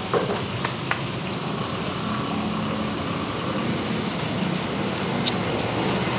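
Steady hum of street traffic, with a few faint clicks.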